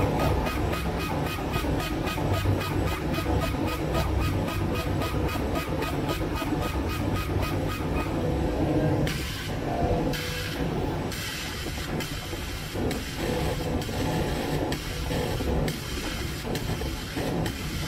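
Bodor laser cutter engraving leather: a steady low hum with hiss, and a rhythmic pulsing of about four or five a second as the head sweeps back and forth. About nine seconds in, the rhythm breaks into irregular pulses and the hiss grows louder.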